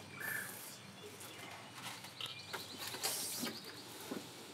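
Faint birds chirping, with a short chirp near the start and a rapid, evenly pulsed trill a couple of seconds in, plus a brief rustle about three seconds in.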